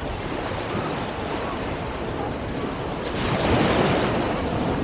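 Surf washing onto the beach, with a wave surging louder about three seconds in, and wind buffeting the microphone.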